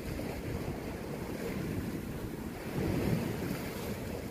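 Sea waves washing against shore rocks, with wind buffeting the microphone; the wash swells a little louder about three seconds in.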